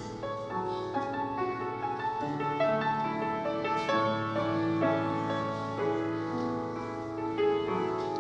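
Grand piano playing a slow piece, with notes and chords held and changing every second or so.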